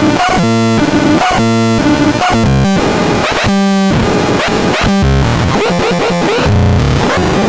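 Homemade DIY synthesizer playing a sequence of short buzzy notes that jump between pitches about twice a second, thickening into a dense noisy drone after about five seconds.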